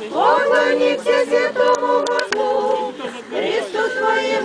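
Unaccompanied church chant sung by a group of voices in harmony, with long held notes.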